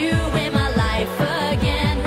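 Dance-pop song: sung vocals over a fast, steady drum beat.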